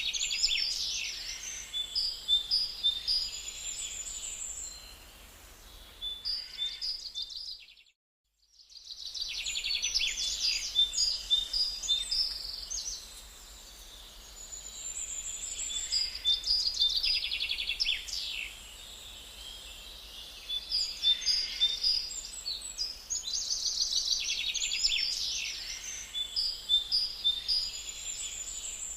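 Small birds chirping and twittering in quick trills, coming in similar clusters every several seconds, with a brief total break in the sound about eight seconds in.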